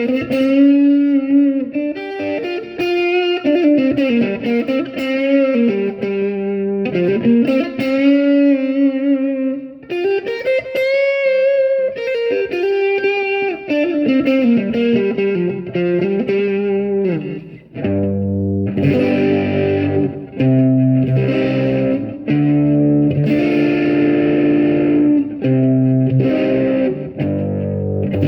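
Xavier PRO830 Tele-style electric guitar played through a Spark modelling amp on a clean Fender-like tone with a little overdrive. For the first half it plays single-note lead lines with string bends; a little past halfway it switches to rhythmic strummed chords with a fuller low end.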